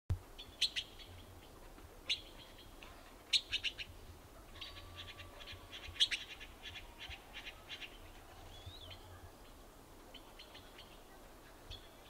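Yellow-billed blue magpies calling with harsh, sharp notes: single calls in the first couple of seconds, a quick cluster, then a longer rattling chatter through the middle, with fainter rattles near the end.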